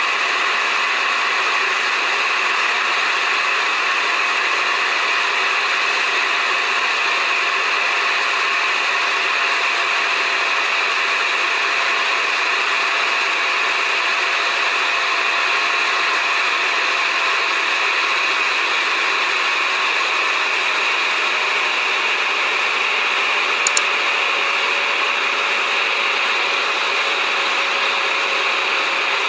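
Steady cabin noise of a jet airliner in flight, engines and airflow running evenly, with a faint steady tone that sinks a little in pitch past the middle. A brief click about three-quarters through.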